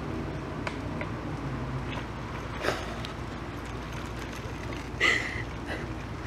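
Steady outdoor background noise with two short, sharp sounds: one a little under three seconds in, and a louder one with a brief high squeak-like tone about five seconds in.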